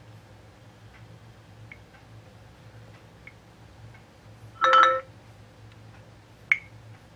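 Samsung Galaxy S2 phone speaker playing a short preview tone about two-thirds of the way in as its volume sliders are dragged up, with a few faint clicks from the phone before and after.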